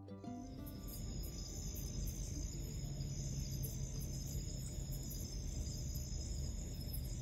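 Insects, crickets by their sound, chirping steadily in high-pitched stretches, over a low steady hum and rumble.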